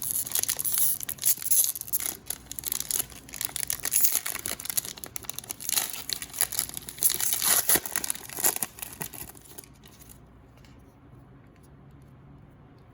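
Plastic wrapper of a 2021-22 Donruss Optic basketball card pack being torn open and crinkled by hand, stopping about nine and a half seconds in.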